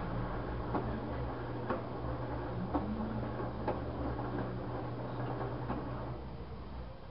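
LG washing machine drum turning with two pillows in the rinse: a steady low motor hum with a click about once a second. The motor hum drops away about six seconds in.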